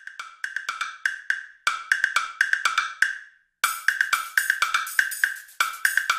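Intro sound effect of quick, irregular wood-block-like clicks, each with a short ring, paced like typing. They pause for about half a second a little past three seconds in, then resume.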